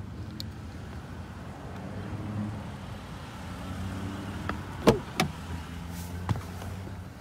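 Toyota Tacoma pickup's engine running with a steady low hum, with two sharp knocks close together about five seconds in.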